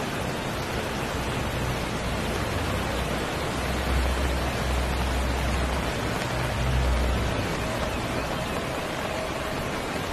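Heavy downpour and running floodwater make a steady, dense hiss. A low rumble swells up twice, around four and seven seconds in.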